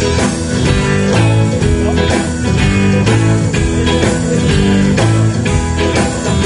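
Live blues-rock band playing an instrumental passage between sung lines: electric guitar, bass guitar and drum kit with a steady beat.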